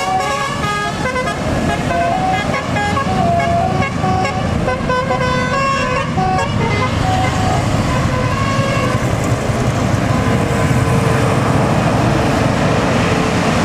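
Tour bus's telolet multi-tone musical horn playing a quick melody of short notes that step up and down in pitch, stopping about six or seven seconds in, with a few more notes around eight seconds. After that the bus's engine and road noise run on, loud and steady.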